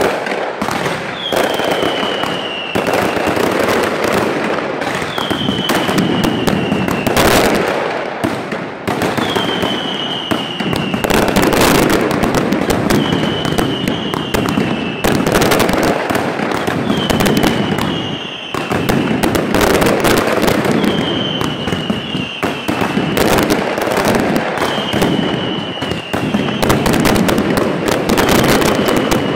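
Nighttime mascletà fireworks: a dense, continuous barrage of crackling and banging firecrackers and aerial shells. A high whistle that falls slightly in pitch comes through about every four seconds.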